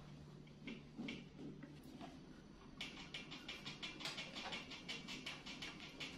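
Crayon scribbling on paper: quick back-and-forth colouring strokes, about six a second, starting about three seconds in. Before that, a few light clicks and rustles of crayons being handled in their box.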